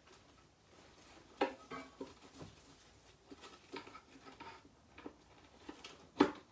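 Crumpled brown kraft packing paper rustling and crinkling in irregular handfuls as it is pulled off a doll, loudest about a second and a half in and again near the end.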